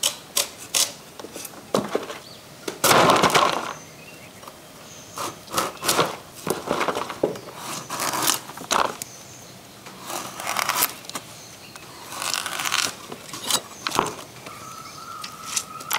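Knives cutting and scraping ash gourd, slicing off peel and flesh in irregular short scrapes and clicks, with a longer, louder scrape about three seconds in.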